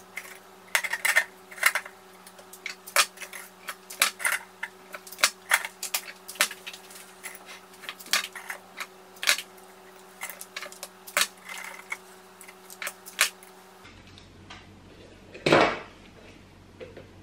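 Handling rose stems at a glass vase: a steady run of sharp clicks and taps as stems are snipped with secateurs and knocked into the glass, over a faint steady hum. The hum stops about 14 seconds in, and a louder brief rustle follows.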